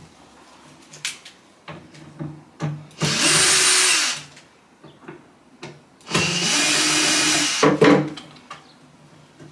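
Cordless drill-driver running in two bursts, about a second and then about a second and a half, driving screws into the side of a wooden drawer. Light knocks and clicks of handling come in between.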